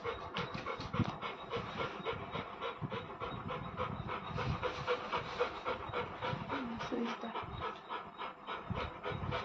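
Yellow Labrador panting rapidly and evenly with its mouth open and tongue out.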